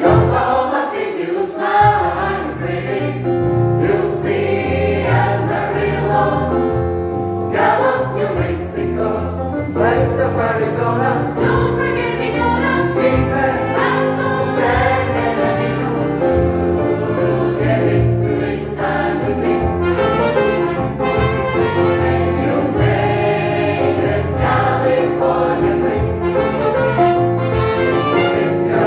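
Mixed choir of men and women singing together, accompanied by keyboard and guitar.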